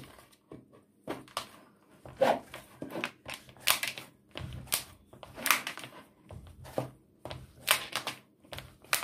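Hands kneading a stiff flour dough in a plastic bowl: irregular soft slaps, squishes and knocks of the dough against the bowl, about one or two a second.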